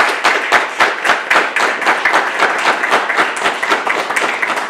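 Audience applauding: dense, loud clapping from many people, with a few close individual claps standing out.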